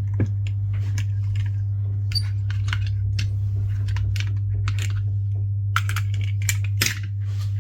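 Small sharp clicks and ticks of a prying tool working the iPhone 15 Plus back glass free of its clips, irregular and bunched in places, over a steady low hum.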